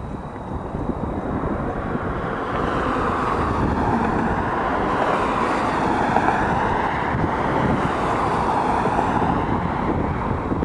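Road traffic: a vehicle passing with a steady rushing sound that swells about two seconds in and stays up.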